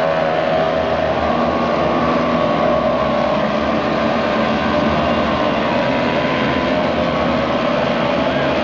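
Rally pickup truck's engine running steadily as the truck drives over the podium ramp.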